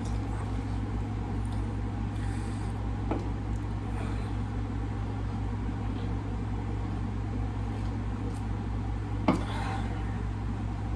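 Steady low hum, with a faint click about three seconds in and a sharper clink or knock about nine seconds in.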